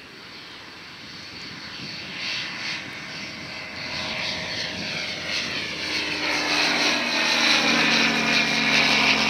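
Aquila A211 single-engine propeller plane with a four-cylinder Rotax 912 engine, flying toward and over the listener. The engine and propeller drone grows steadily louder, and their pitch drops over the last few seconds as the plane passes overhead.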